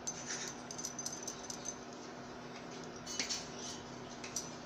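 Induction cooktop running under a pan, a steady low hum with a fan-like hiss, with a few faint clicks and rustles of handling near the stove.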